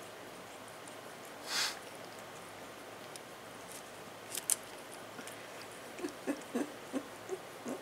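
Cat scooping milk from a plastic cup with its paw and licking it off. A brief rustle comes early, a couple of sharp clicks come about halfway, then a run of soft, quick licks, about four a second, fills the last couple of seconds.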